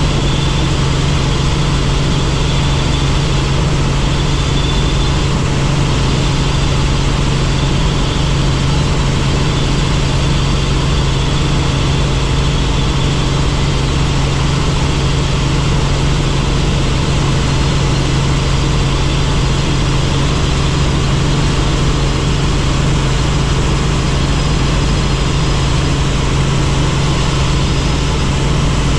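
Helicopter in flight: loud, steady engine and rotor noise with a constant low hum.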